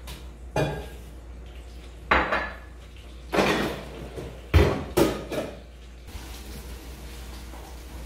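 Kitchen crockery and pans clattering: a ceramic mug and pots being knocked and set down on the counter and stove, about five separate clinks and clanks over a low steady hum.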